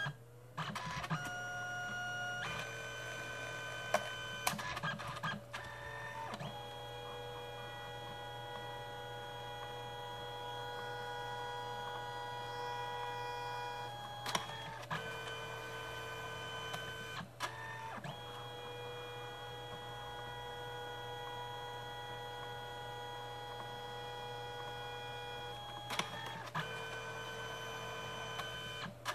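Canon Selphy CP1200 dye-sublimation photo printer printing: its feed motor whines steadily as the paper is driven back and forth for each colour pass. The whine is broken every few seconds by clicks and short pauses, with a change of pitch as the paper changes direction.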